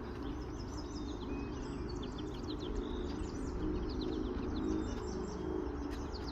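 Small birds chirping and twittering repeatedly, over a steady low background rumble.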